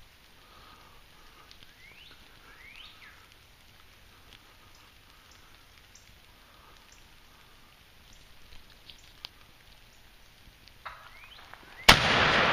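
Quiet woodland with faint high chirps and scattered light ticks. Near the end a sudden loud crack sets in, followed by loud rustling and handling noise as the camera is swung and moved.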